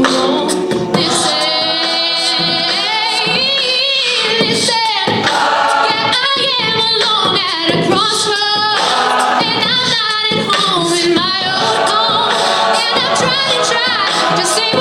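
Mixed a cappella group singing in harmony: a lead voice with wavering, ornamented pitch over a backing of sustained chords from the other voices, without instruments.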